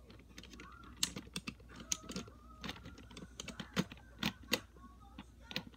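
Plastic Lego bricks clicking and knocking as a hand presses and fiddles with pieces of a Lego model locomotive. It is a quick, irregular run of sharp clicks, beginning about a second in.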